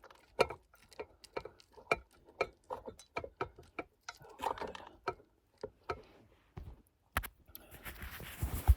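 Spoon clicking and scraping against a dish while sticky rice is stirred, in quick irregular taps about twice a second. Near the end come a rustle and one louder knock.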